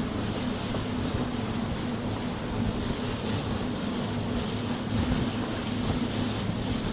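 Steady rushing noise of wind and sea water, with a low, even hum underneath.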